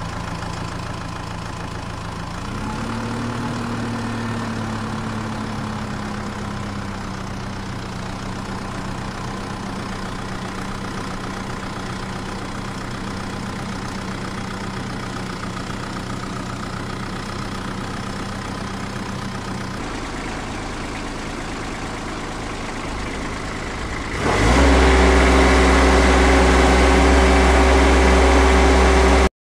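Vehicle engine idling steadily. Its pitch rises a little about two and a half seconds in, and its sound shifts about twenty seconds in. A much louder engine takes over about twenty-four seconds in.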